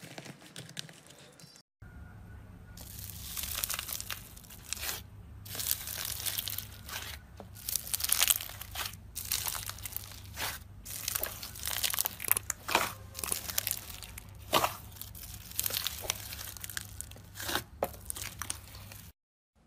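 A hand squeezing and pressing clear slime in a tub of foamy water, making dense wet crackling and crinkling with uneven sharp pops, over a low steady hum. It starts after a brief break about two seconds in and stops abruptly just before the end.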